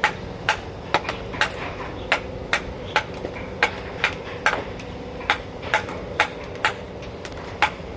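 Mallet striking a carving chisel into wood, sharp knocks at about two a second with a couple of short pauses, over a steady low hum.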